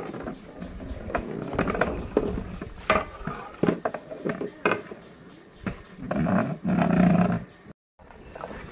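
Long metal ladle stirring dal in a large aluminium cooking pot, scraping and knocking against the pot over and over. About six seconds in, a louder low, drawn-out sound lasts about a second and a half.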